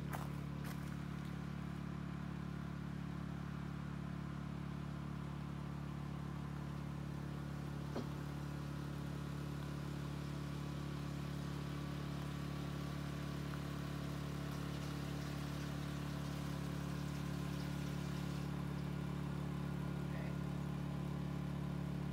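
An engine running steadily, a low, even hum that does not change in pitch, with a single sharp click about eight seconds in.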